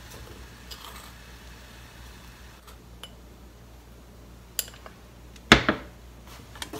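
Metal spoons clinking against an aluminium saucepan as sugar is spooned in: a few light clicks, then one sharp, ringing clink about five and a half seconds in.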